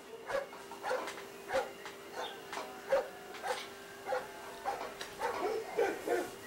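A dog barking over and over, about twice a second, with a faster cluster of barks near the end, over a faint steady hum.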